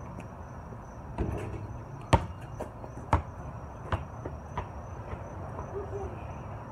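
A basketball bouncing several times, each bounce sharp, the bounces coming quicker and fainter as the ball comes to rest.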